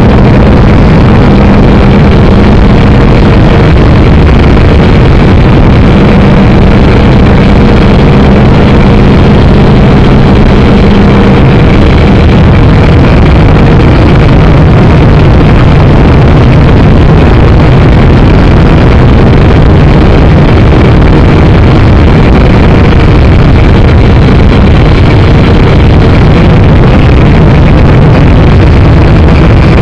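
Syma X5C quadcopter's four small brushed motors and propellers running in flight, picked up by its own onboard camera: a loud, constant buzzing hum with a few steady pitches, the lowest dropping slightly about twelve seconds in.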